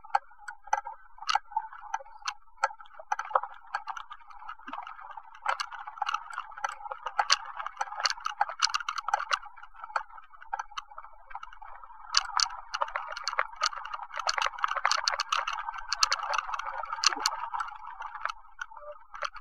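A bicycle being ridden: irregular ticking and rattling over a steady rolling noise, sparse at first and thickening to dense clattering about a third of the way in and again after the middle.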